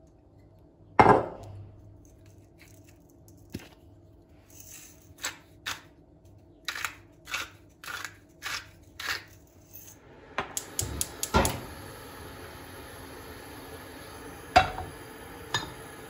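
Kitchen dishes and utensils being handled: a sharp knock about a second in, then a run of light clinks and taps. About ten seconds in, a quick cluster of clicks gives way to a steady hiss, with two more knocks near the end.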